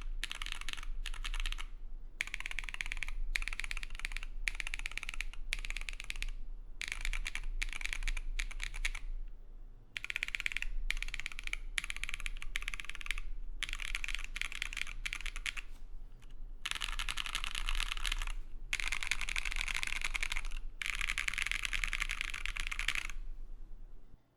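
Typing on a KBD67 Lite R3 keyboard with lubed dk Sarus tactile switches, a polycarbonate plate and GMK keycaps: a fast, crisp, clacky run of keystrokes broken by short pauses, stopping just before the end.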